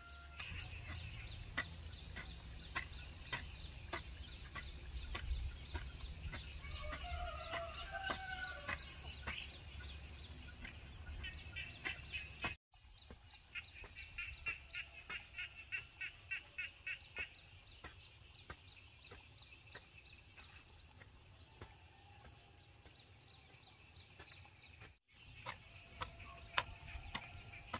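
Chickens clucking and calling, over a scatter of sharp clicks and taps, with a short run of rapid, regular ticks a little past halfway.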